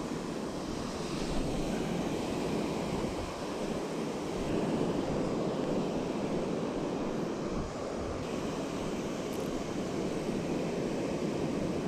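Small surf breaking and washing up a sandy beach, a steady rushing sound, with some wind on the microphone.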